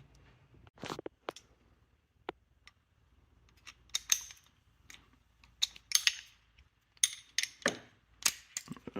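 Metal hand tools clicking and clinking as they are handled, scattered irregular knocks with a short metallic ring, busier in the second half.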